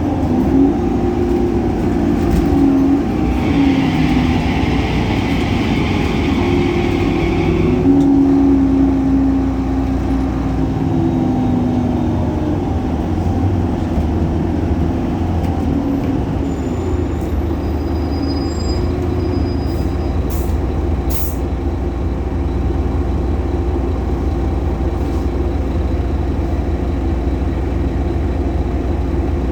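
Solaris Urbino 18 articulated bus's DAF Paccar PR265 diesel engine running, its pitch shifting through the first ten seconds or so and then settling to a steady low drone. A hiss comes in about three seconds in and stops about five seconds later.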